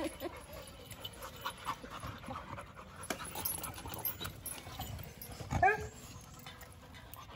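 Labrador retriever panting, with one short whine about five and a half seconds in.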